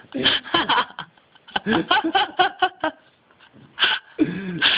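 Indistinct human voices talking and murmuring, with a brief quieter gap a little past halfway.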